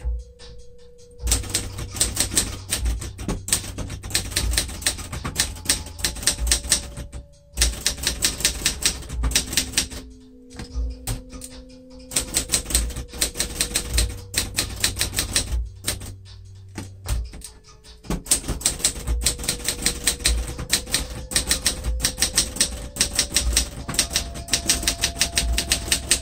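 Adler J5 manual typewriter being typed on quickly: rapid runs of key strikes, broken by a few short pauses.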